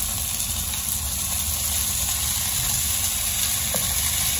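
Masala and peas sizzling steadily in a pan over a gas burner on high flame, a constant hiss over a low steady rumble. A couple of faint spatula taps come near the end as the boiled drumstick flowers are pushed in.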